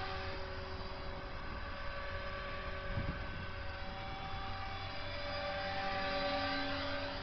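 Align T-Rex 450 electric RC helicopter in flight: the steady, high whine of its motor and rotor, shifting a little in pitch near the end.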